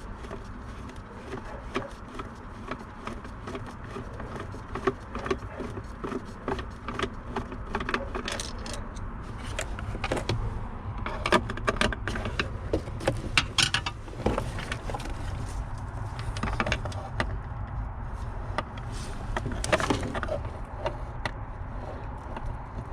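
Hand tools and small metal parts clicking and rattling while trim and fittings are worked loose inside a car's dash, in irregular bunches of clatter over a low steady hum.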